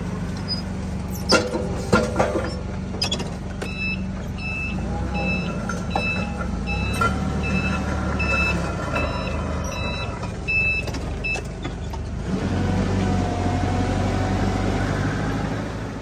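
Forklift engine running while it drives, with two sharp knocks a couple of seconds in. Its reversing alarm then beeps steadily for about eight seconds, a little more than one beep a second, as it backs up. The engine grows louder in the last few seconds.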